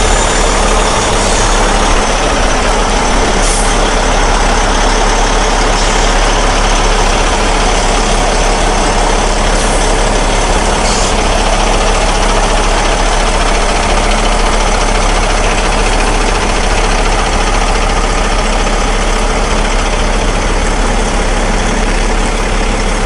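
Peterbilt 389 semi truck's diesel engine running steadily at low speed while backing, with a few short high hisses about every few seconds.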